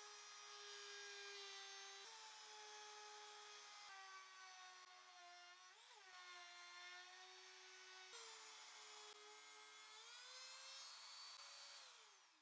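Handheld electric router with a 12 mm straight bit, faint and steady, routing a groove along a cedar board; its whine dips and shifts in pitch a few times as the cut loads it. Near the end the pitch rises, then falls away as the motor winds down.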